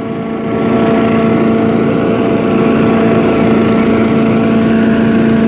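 Simplicity 5-25 leaf vacuum shredder's 5 hp 206cc Briggs & Stratton horizontal-shaft engine running steadily, a constant hum with clear held tones.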